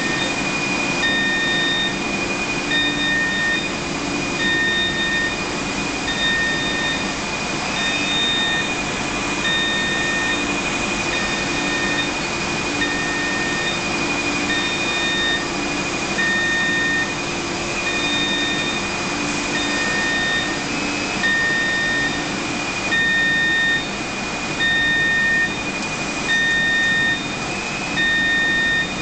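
Steady hiss and hum of semiconductor wafer-track machinery and cleanroom air, with a high electronic beep repeating about once a second. Near the end the noise swells in short surges about every second and a half.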